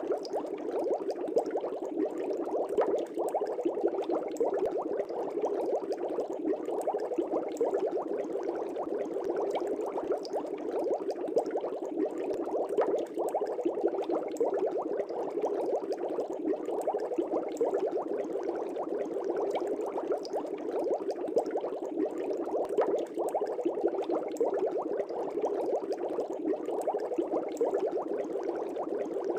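Air bubbles in a fish tank, a dense steady stream of bubbling and popping with no let-up.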